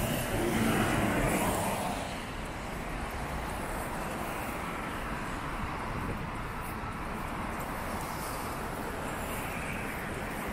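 City street traffic on a wet road. A trolleybus passes close by, louder for the first couple of seconds, then a steady hiss of traffic carries on.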